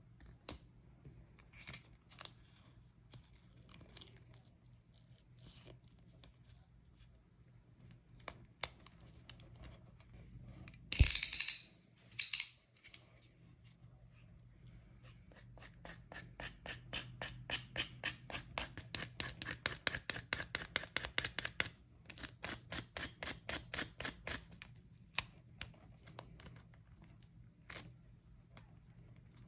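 Black Cat foam grip tape on a fingerboard deck being handled and trimmed. There are soft scattered clicks and rustles, and a loud short rustle of the tape about a third of the way in. Then comes a quick steady run of short scraping strokes, about five a second, as a tool works along the grip at the deck's edge.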